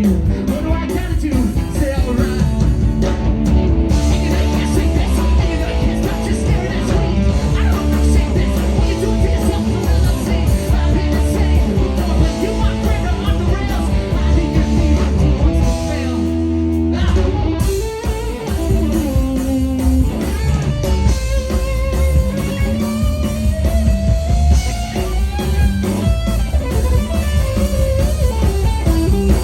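Live rock band playing an instrumental passage: electric guitar, bass and drums, with a lead guitar line that bends up and down in pitch in the second half.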